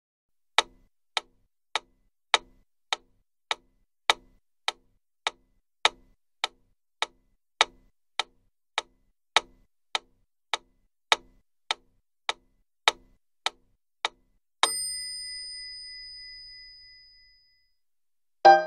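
Clock ticking evenly, just under two ticks a second, for about fourteen seconds. Then a single bright, high ding that rings out and fades over about three seconds. Piano music starts right at the end.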